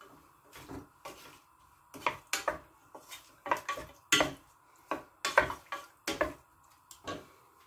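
Wooden spoon stirring chicken pieces and onion in a stainless steel pot, knocking and scraping against the pot in irregular strokes, a couple a second.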